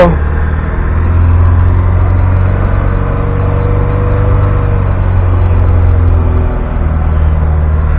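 VAZ-2106 Zhiguli's carbureted four-cylinder engine running at a fast idle on choke, heard from inside the cabin, seconds after a cold start following months unused. The note is steady and dips slightly about six and a half seconds in.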